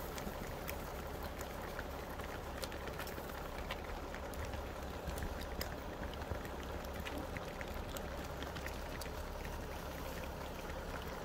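American bison hooves clicking and scuffing irregularly on asphalt as a herd walks past, over the steady low hum of an idling vehicle engine.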